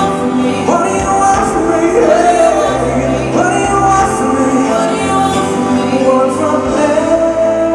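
Live pop-rock band playing with a male lead singer and backing singers, heard amplified through a PA; the lead voice slides up into long held notes, holding one near the end.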